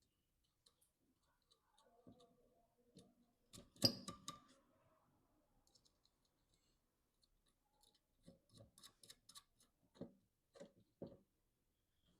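Light clicks and clinks of small metal nuts and washers being handled and run onto the bolts of a glass ink tank assembly, with a louder clatter about four seconds in and a run of small clicks near the end.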